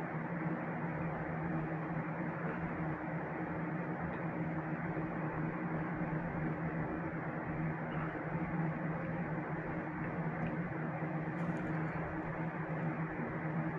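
Steady low hum over an even hiss, unchanging throughout.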